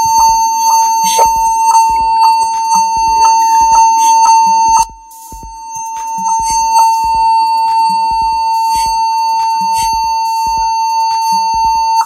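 Lenovo B460E laptop giving one long, continuous beep at power-on: a steady high tone, the fault signal of its long-beep boot problem. The tone dips in level about five seconds in, then holds on until it cuts off suddenly at the very end. Electronic background music with a steady beat runs underneath.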